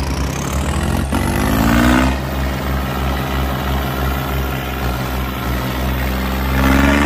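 John Deere 5210 tractor's diesel engine at full throttle, straining under heavy load as it pulls against another tractor. Its pitch rises about a second in and again near the end, with a pulsing throb in between.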